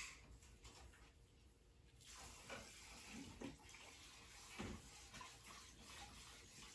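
Near silence: a faint steady hiss that comes in about two seconds in, with a few soft handling rustles and light knocks.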